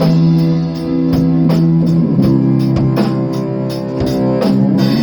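A band playing at a sound check: held guitar chords over a steady drum beat, with the chord changing about two seconds in.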